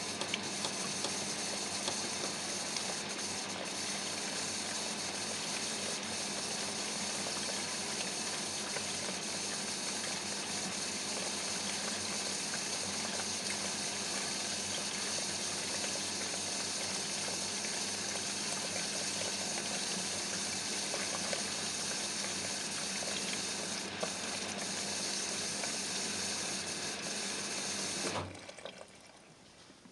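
Front-loading washing machine taking in water through its inlet valve with the drum at rest: a steady rush of water that cuts off about two seconds before the end.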